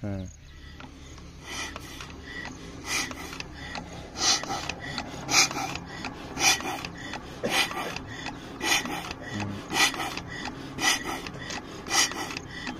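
Fuel injection pump of a single-cylinder diesel engine worked by hand, about one stroke a second. Each stroke gives a short rasping hiss, the fuel being pushed through to check the supply after the pump was adjusted.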